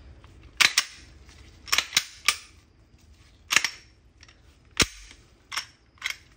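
Glock 17 slide clacking against the pistol's frame as it is fitted onto the frame rails: a series of sharp, short metal-on-polymer clicks and clacks at irregular intervals.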